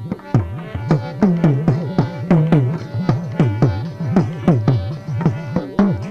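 Dakla drum beaten in a quick, steady rhythm, each stroke sliding in pitch as the head is squeezed, in an instrumental break of a Gujarati devotional song.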